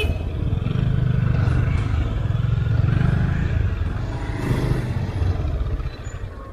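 Motorcycle engine running at low speed as the bike rolls along, heard from on the bike; it drops quieter about six seconds in.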